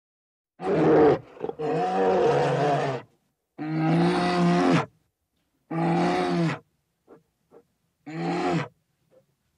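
Bear giving a series of five drawn-out, pitched calls, each around one to one and a half seconds long, separated by short silences.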